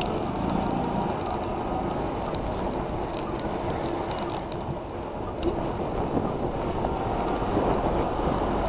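Steady wind rush on the microphone mixed with road and passing-traffic noise while moving along a street.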